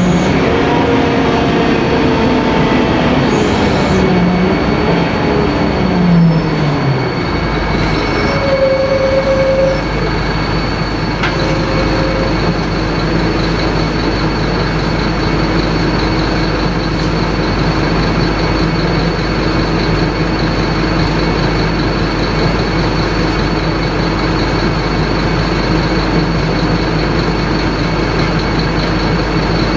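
Scania K-310IA bus's five-cylinder inline turbodiesel engine running. Its revs fall over the first several seconds, then it holds a steady speed with a low drone.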